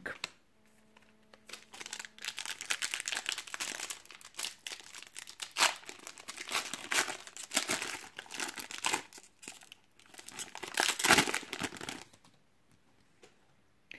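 Plastic wrapper of a Donruss soccer trading-card pack crinkling and tearing as it is opened by hand, in irregular crackly bursts that start about two seconds in and stop near the end.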